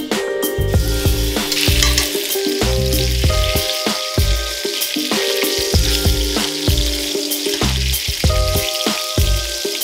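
Flour-dredged beef short ribs sizzling in hot oil in a stainless steel pan, the sizzle starting just under a second in and running steadily. Background music with a beat plays underneath.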